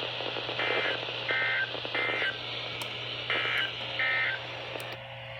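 Emergency Alert System SAME end-of-message data bursts: short two-tone digital bursts, three in quick succession and then two more, over steady radio hiss and a low hum.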